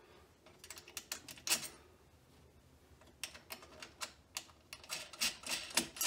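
Small metal clicks and clinks of bolts, flat washers and lock washers being fitted by hand behind the generator's thin sheet-metal panel to mount a propane regulator. A few scattered clicks, a short pause, then a quicker run of clicks over the last three seconds.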